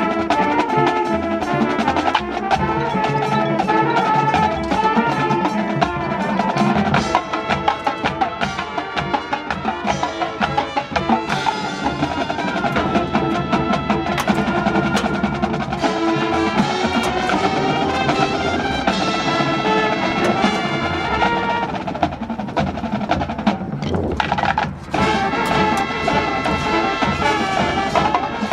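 High school marching band playing: brass and percussion together, with dense, rapid percussion strikes throughout. A brief break just before the last few seconds.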